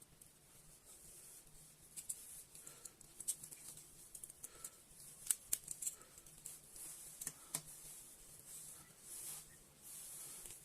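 Faint, irregular small clicks and light scraping, densest in the middle, over a low steady hum.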